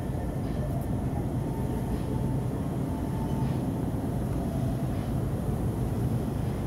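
Steady low rumble of grocery-store room noise, the hum of refrigerated display cases and ventilation, with a few faint steady tones above it.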